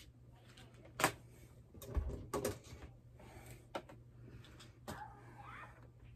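Scattered knocks and clicks as fabric and a crochet bag are handled and pushed through the feet of a sewing machine that is not stitching, about five over several seconds, over a faint low hum.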